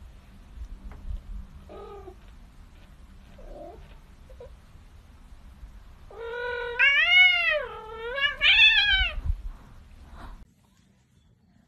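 A kitten meowing: a few faint short mews, then two long, loud meows a second or so apart, each rising and falling in pitch.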